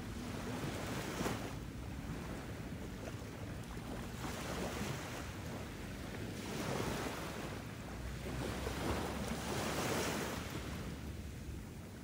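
Ocean surf: waves washing in and drawing back, rising and falling in about four slow swells.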